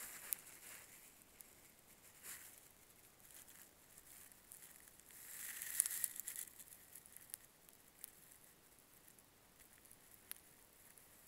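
Faint rustling and small clicks, with a brief louder rustle about six seconds in.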